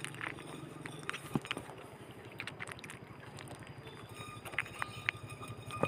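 Otter pup eating small fish pieces from a glass plate: scattered short wet clicks of chewing and lapping. A steady low rumble runs underneath.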